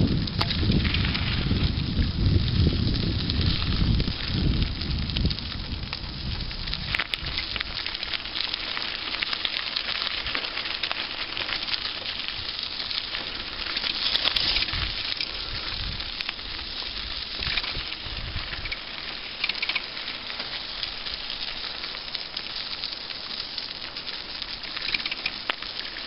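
Bicycle tyres rolling over a gravel trail, a steady crackling crunch. Wind rumbles on the microphone for the first several seconds and again briefly in the middle.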